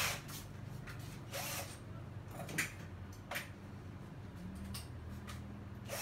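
A few short knocks and rustles of things being handled and moved, over a low steady hum.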